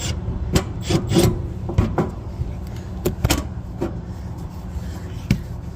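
Irregular sharp clicks and knocks from handling an electrical panel cover, screws and a screwdriver, over a steady low hum from the running condensing unit.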